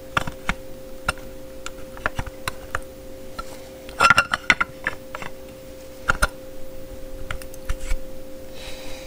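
6-inch guard of a DeWalt FlexVolt angle grinder clicking and rattling against the grinder head as it is fitted over the spindle and turned to lock in its notched collar. There are scattered clicks, with a quick cluster about four seconds in and another near six seconds.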